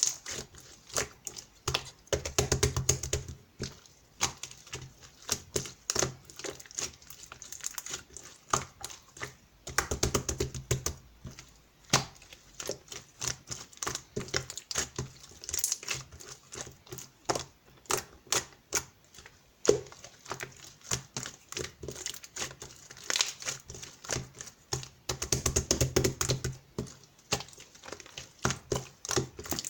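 Clear slime being squeezed and worked by hand, giving rapid trains of sticky clicks and pops, with three denser bouts of squishing.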